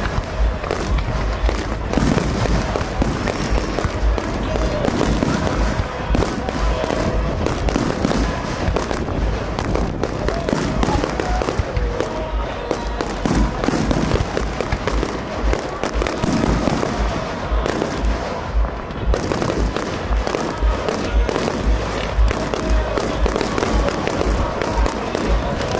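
Aerial fireworks going off without let-up: dense crackling and bangs, several a second, with music playing alongside.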